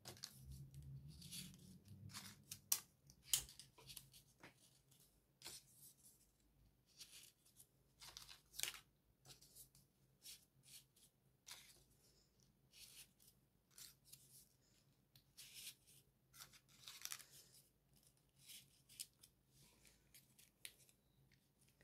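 Folded paper triangle modules for 3D origami handled and pushed onto a ring of other modules: faint, irregular paper rustles and crisp ticks, a few a second.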